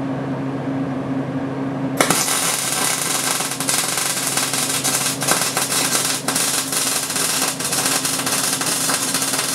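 MIG welding arc crackling as a bead is laid on steel, starting suddenly about two seconds in and running on over a steady hum.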